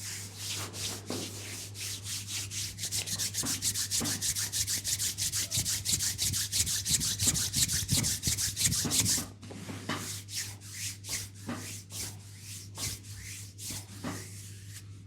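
Hands rubbing briskly back and forth over skin in fast strokes, several a second, growing louder. About nine seconds in the fast rubbing stops suddenly and gives way to softer, slower strokes.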